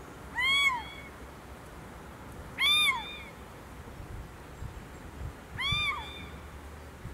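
Little owl giving three short calls a few seconds apart, each rising and then falling in pitch.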